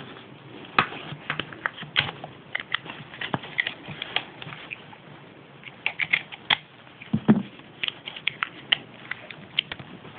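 Small plastic packaging being handled and opened by hand: irregular crinkles and clicks, with a soft thud about seven seconds in.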